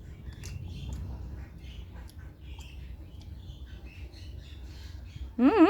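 Soft clicks and small handling noises over a low room rumble, then about five seconds in a child's high, wavering sing-song voice starts loudly.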